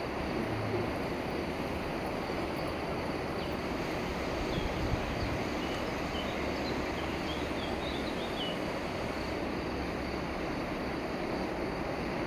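Steady outdoor wind rushing on the camera's built-in microphone, with a few faint high chirps in the middle.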